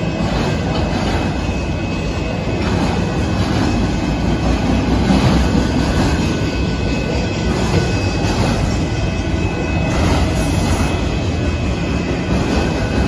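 Freight train of autorack cars rolling past at close range: a steady rumble of wheels on rail with occasional faint knocks, and a thin steady high tone above it.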